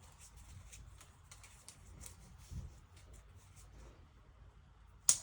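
Faint small clicks and rustles of handling, then one sharp click about five seconds in.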